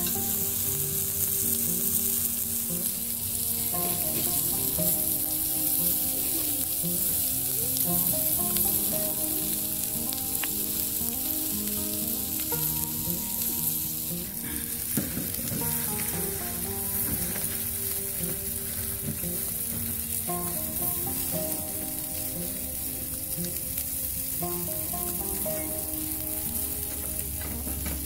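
Chicken wings sizzling and frying on a hot cast-iron grill plate over a campfire, a steady crackling hiss. Soft background music with changing held notes plays underneath.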